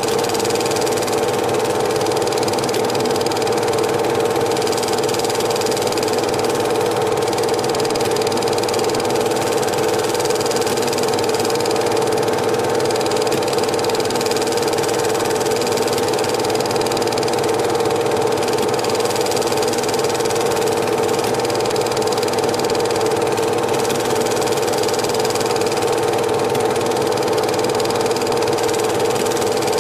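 Cine film projector running steadily: a constant motor hum with the rapid mechanical chatter of the film transport.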